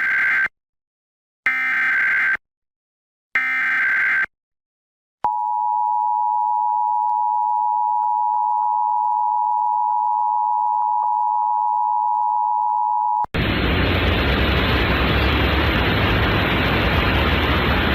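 Emergency Alert System Required Monthly Test: three short bursts of SAME header data, about a second apart, then the EAS two-tone attention signal held steady for about eight seconds. The tone cuts off and a loud, steady hiss of static follows.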